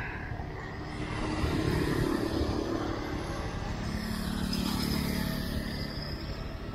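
Small motor scooter engines: the ridden motorbike running, with wind rumble on the microphone, and other scooters passing close by, swelling louder about one and a half seconds in and again about four seconds in.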